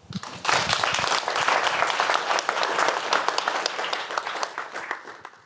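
Audience applauding, many hands clapping; the applause builds within the first half second and dies away near the end.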